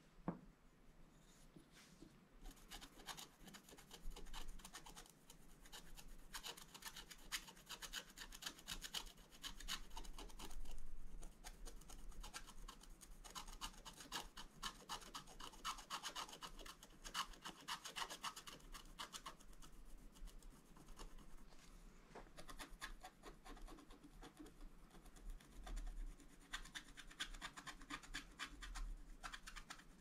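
Wooden stylus scratching the black coating off a scratch-art page in many quick, short strokes. One short knock right at the start.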